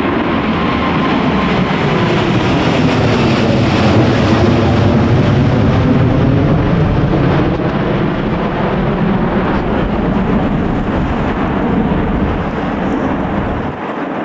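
Boeing 777 passing low overhead with its jet engines at high go-around thrust. The engine noise swells to its loudest about four seconds in and then slowly fades, with its tones sliding in pitch as the aircraft goes by.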